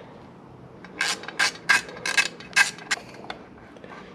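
Allen key working the bolts of a motorcycle's air cleaner cover loose: a quick run of about seven sharp metal scraping clicks between about one and three seconds in.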